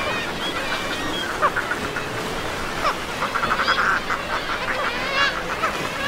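A seabird colony, many birds calling over one another. There are sliding calls throughout, and a fast rattling chatter from about the middle of the clip. A steady hiss runs underneath.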